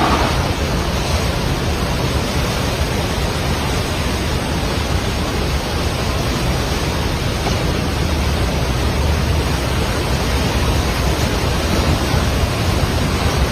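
Steady, loud rush of a river in flood, an even roar of fast-moving water with a deep rumble underneath.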